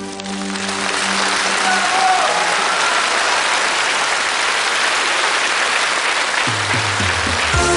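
Large theatre audience applauding, a loud, even clapping. Near the end, band music with a bass line starts up under the applause.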